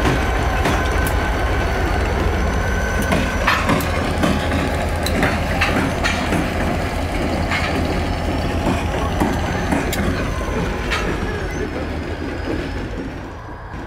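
Wheeling & Lake Erie diesel locomotives rolling slowly past, engines rumbling, with sharp clicks and knocks from the wheels on the rails and a thin squealing tone on and off. The sound fades over the last couple of seconds as the locomotives draw away.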